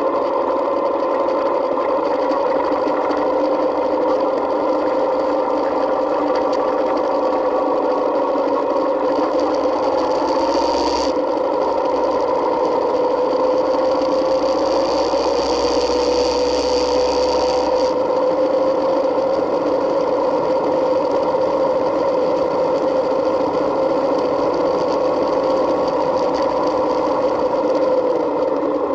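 Yamaha Midnight Star 1900's V-twin engine running steadily on the move, picked up by a camera mounted on the bike, its note drifting slightly up and down. A hiss joins for several seconds midway through.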